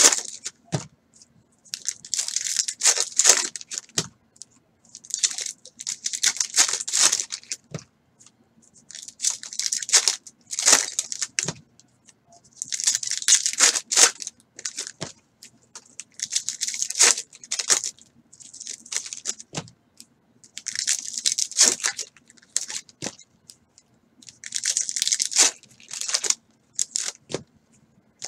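Foil wax packs of 2018 Topps Baseball Series 2 trading cards being torn open one after another, each rip and crinkle of the wrapper lasting a second or two, about one every three seconds with short pauses between.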